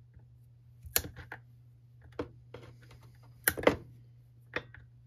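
Side cutters snipping through the blower's old fuel lines at the fuel tank: a series of short, sharp clicks and snaps, the loudest a pair about three and a half seconds in.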